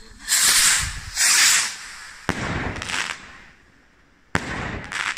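Consumer firework rockets hissing and bursting. There are two loud hissing rushes in the first second and a half, then sharp bangs about two and a half and about four and a half seconds in, each trailing off in a hiss.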